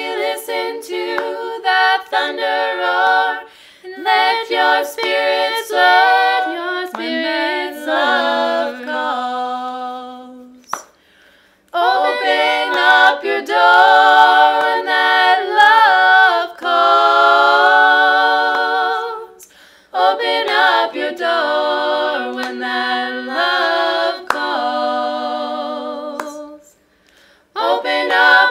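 Three women singing a folk song a cappella in close three-part harmony, in long phrases with short pauses between them.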